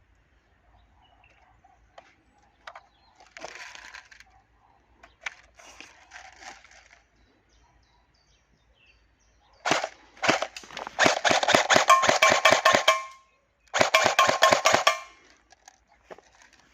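Airsoft electric rifle (FAMAS F1 Evo AEG) firing on full auto: a short burst about ten seconds in, then a long burst of rapid clicking shots lasting about three seconds, and another burst of about a second. Before that, only faint handling noises.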